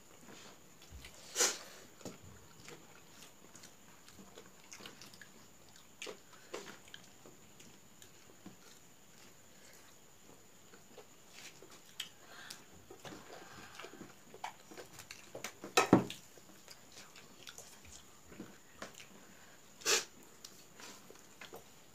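Eating sounds of rice and egg curry eaten by hand: chewing, with many small scattered clicks of fingers and food against steel plates. Three louder sharp clicks come about a second and a half in, about three-quarters through and near the end.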